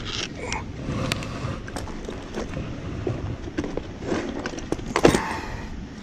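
Handling noise of a technician working at an AC condenser: scattered light clicks and rustles of hands, tools and clothing, with one louder knock about five seconds in.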